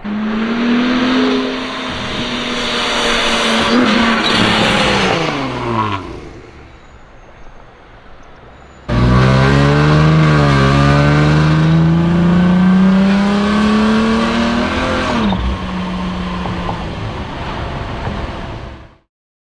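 Supercharged V6 of a Dodge Challenger with a catless exhaust, driven hard. A loud run holds its pitch, then falls away about six seconds in. A second run starts abruptly about nine seconds in, climbs steadily in pitch for about five seconds, then backs off.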